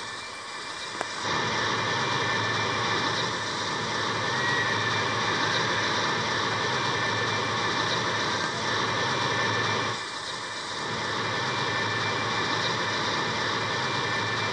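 Steady roar of a large fire burning at a train derailment. It starts abruptly about a second in and drops briefly around ten seconds in.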